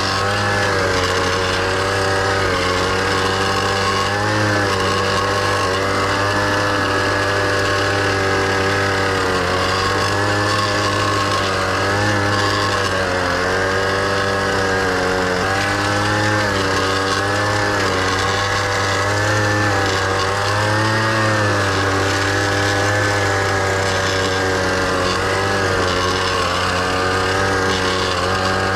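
Small gasoline mini tiller's engine running under load as its tines churn weedy soil, the pitch sagging and picking back up every second or two as the tines bite in.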